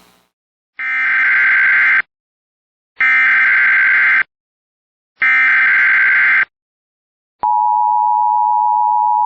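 Emergency Alert System SAME header: three bursts of digital data screech, each about a second long with a second's gap between them. These are followed about 7.5 s in by the steady two-tone EAS attention signal, which carries on past the end. Together they mark the start of a new alert.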